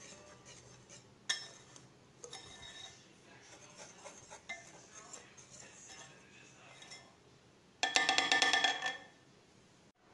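Metal wire whisk stirring dry flour in a glass bowl, with light scrapes and small clinks against the glass. About eight seconds in comes a burst of rapid, ringing clinking as the whisk rattles against the bowl for about a second.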